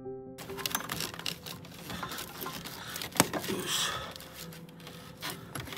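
A short piano jingle ends about half a second in, then hands work around a car's throttle body and wiring in the engine bay: rustling and scattered small clicks, with one sharp click about three seconds in.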